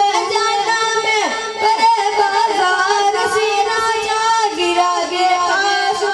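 A boy singing a naat into a microphone over a loudspeaker, his high voice holding long notes that bend and waver.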